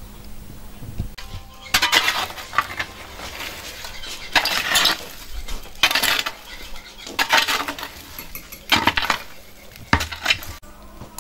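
Small metal shovel scraping and raking glowing charcoal embers inside a tandoor, with rasping, clinking strokes. There are about six strokes, roughly one every second and a half, starting about two seconds in.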